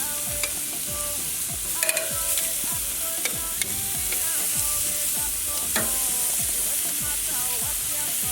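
Seasoned beef sizzling on a hot barbecue grill: a steady frying hiss, with a few sharp clicks.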